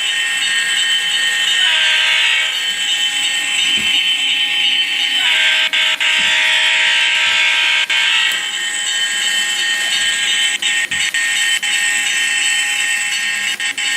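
Sound decoder in a model SD45 diesel locomotive playing a diesel engine running through its small speaker, with two horn blasts, the second longer. Near the end the sound cuts out briefly several times with faint clicks, the sign of dirty track and wheels breaking the electrical pickup.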